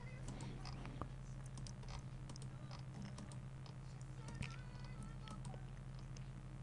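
Faint, scattered clicking from computer use at the desk, over a steady low hum.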